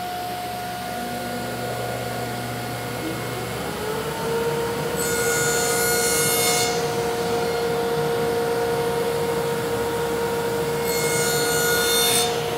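Cabinet table saw running steadily, its blade cutting into a short wooden board twice. Each cut is a brief hiss over the hum, one about five seconds in and one near the end.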